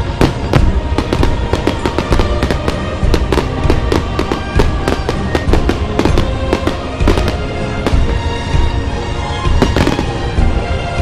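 Fireworks going off: a rapid, irregular run of sharp bangs and cracks, with music playing underneath.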